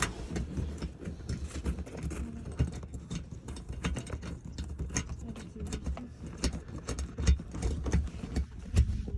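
Scattered small clicks and knocks from hands fitting an under-car splash shield and threading its fasteners by hand, over a low rumble of handling noise.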